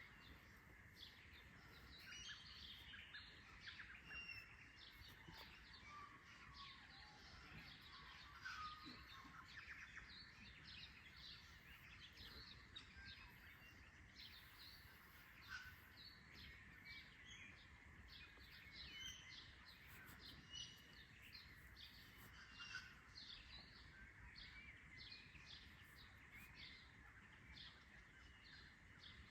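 Faint dawn chorus of small birds: many short chirps and tweets scattered throughout, over a faint steady high hum.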